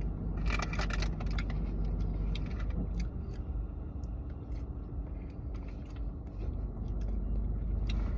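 Steady low rumble of a car cabin, with a cluster of small clicks about half a second to a second in and a few scattered ticks after.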